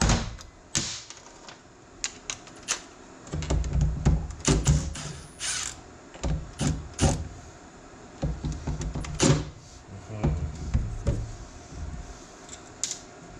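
Scattered sharp clicks, knocks and dull thumps of metal parts and hand tools being handled while a tractor power-steering valve is taken apart.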